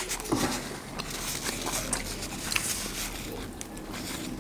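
Close-miked eating of fried chicken and mutton lollipops: soft chewing with scattered small clicks and taps, and a brief low falling sound about half a second in.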